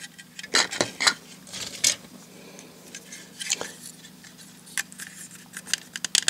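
Irregular small clicks, taps and short scrapes of hard plastic model parts and hobby tools being handled on a workbench, over a steady low hum.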